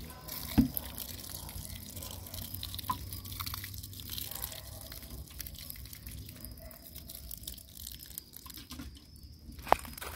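Water dripping and trickling after a watering. A dull thump comes just after the start, and a sharp click comes near the end.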